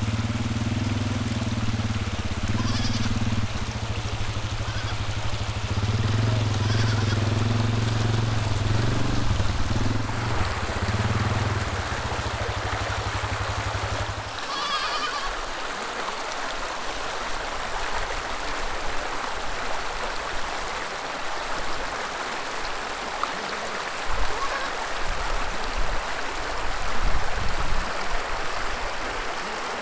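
An ATV's engine idling steadily with a few goat bleats over it. About fourteen seconds in it gives way to a shallow creek flowing, with another bleat from the goat kids and a few knocks near the end.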